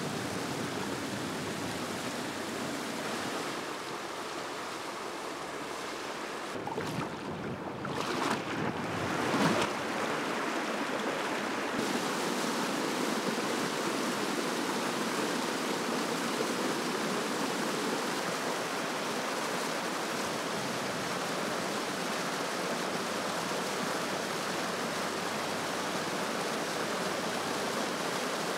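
Small waterfall pouring over rock ledges: a steady rush of water, with a brief louder patch about a third of the way in.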